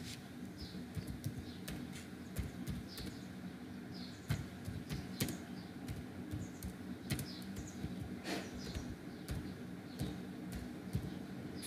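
Typing on a computer keyboard: irregular key clicks as a word is typed out, over a faint steady low hum.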